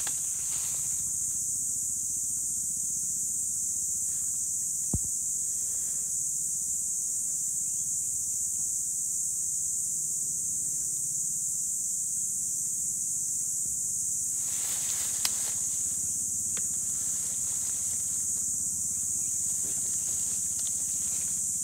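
Steady, high-pitched drone of an insect chorus. Brief rustling about fifteen seconds in, with a couple of sharp clicks.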